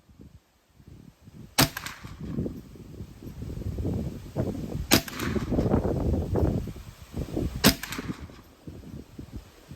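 Three single shots from a .22 LR Smith & Wesson M&P 15-22 rifle, about three seconds apart. Gusty wind buffets the microphone between them.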